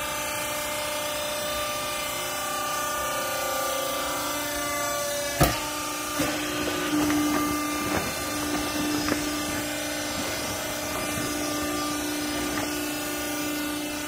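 Steady hum of a hydraulic baler's power unit (electric motor and pump) running. About five seconds in there is one sharp metallic clank, followed by irregular knocks and rustling as the chamber is handled and loaded with old clothes.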